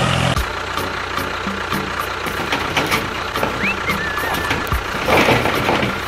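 A small motor running steadily, with scattered clicks and rattles, a short chirp about four seconds in and a louder burst just after five seconds.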